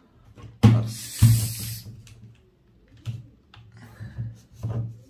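Handling noise from a USB clip-on microphone being plugged in and moved: a sharp knock, then a second knock with a brief hiss about a second in, and a few softer clicks and rubs after. A low hum runs underneath.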